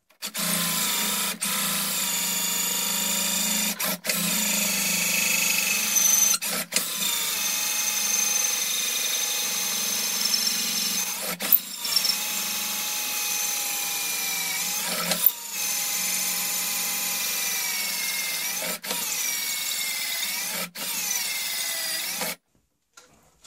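Handheld electric drill turning a long drill bit to bore the ramrod hole in a wooden longrifle stock. The motor whines steadily, with brief stops and dips in speed every few seconds, then cuts off near the end.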